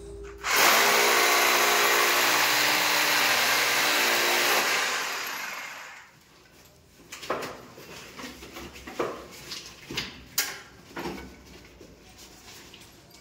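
Electric hand drill running at full speed for about four seconds, then winding down. After it stops come a series of sharp knocks and clicks.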